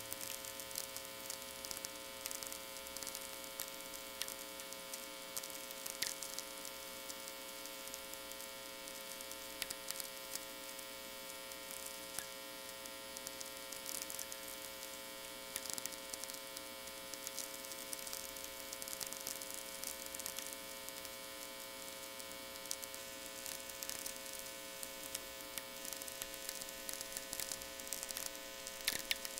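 VLF natural-radio receiver audio: irregular crackling clicks of sferics, the radio static from distant lightning, over a steady buzz of power-line hum tones. A cluster of louder clicks comes near the end.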